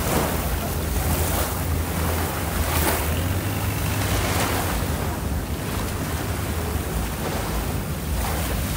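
Wind buffeting the microphone over the steady wash of the sea, with a deep rumble and soft swells about every second or so.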